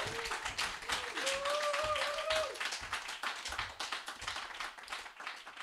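Small audience applauding at the end of a poetry reading, with a drawn-out call from one listener in the first couple of seconds; the clapping fades out near the end.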